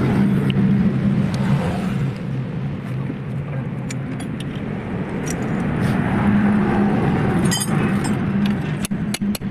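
Engine running steadily with a low hum. A few sharp metallic clinks come near the end.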